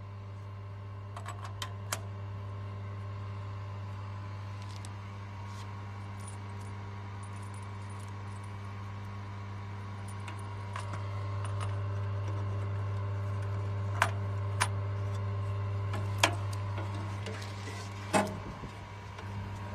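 Cable plugs and connectors clicking and rattling as they are handled and plugged into a laser welder's wire feeder. There are a few sharp clicks near the start and a louder cluster of clicks over the last several seconds, over a steady low machine hum.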